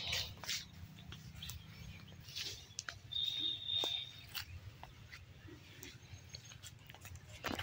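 Scattered light rustles and clicks, with one high, steady whistle-like note lasting about a second, about three seconds in.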